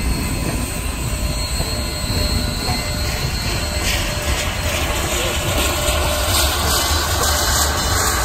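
Union Pacific 844, a 4-8-4 steam locomotive, rolling slowly past tender-first: a steady rumble of wheels and running gear with a hiss that gets a little louder in the second half as the engine itself draws near.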